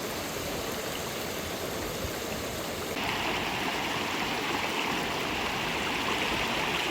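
Valley stream flowing over rocks, a steady rush of water; about three seconds in it changes abruptly to a brighter, hissier rush.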